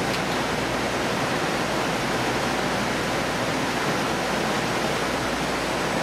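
Steady rushing noise from a fish-processing line on a trawler's factory deck, even and unbroken, with a faint low hum under it.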